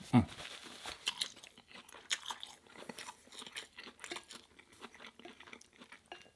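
Close-up eating sounds of a person chewing ramen noodles with seaweed crisps mixed in: irregular crunches and mouth clicks, the loudest just after the start.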